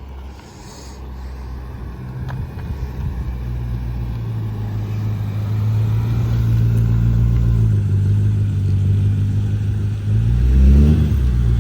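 BMW M5's twin-turbo V8 running at a low, steady note that grows louder, then a brief rev that rises and falls in pitch near the end.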